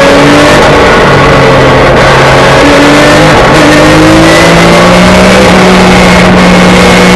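Porsche 911 GT3 Cup race car's flat-six engine running hard at high revs, heard from inside the cockpit. Its pitch changes in steps during the first few seconds, then climbs slowly for the rest.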